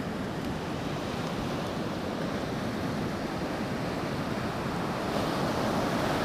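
Ocean surf breaking and rushing up a beach as a steady wash of noise, mixed with wind on the microphone.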